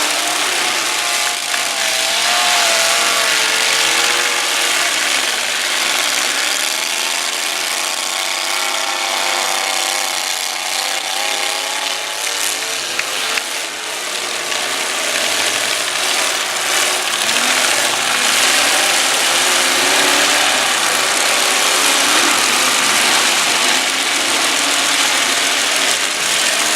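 Demolition-derby pickup truck engines revving hard, their pitch rising and falling, over a dense, loud wash of engine noise, with a couple of sharp knocks about halfway through.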